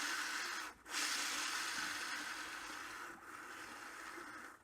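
A heavy trackball ball spun by hand on ball transfer units, a steady rolling hiss from the small steel balls. It breaks off briefly just under a second in, then starts again and slowly fades as the ball coasts.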